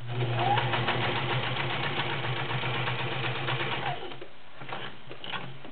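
Kenmore 385.1232 domestic sewing machine running steadily, stitching through ten layers of cotton, then stopping about four seconds in, with a few light clicks after.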